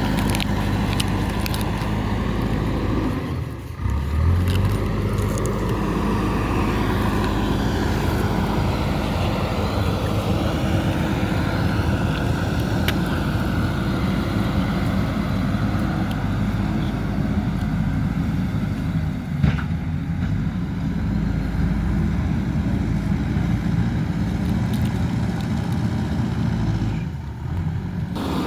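Diesel engine of a JCB 3DX backhoe loader running steadily while it works, with a brief dip and surge about four seconds in and another dip near the end. A single sharp knock comes about two-thirds of the way through.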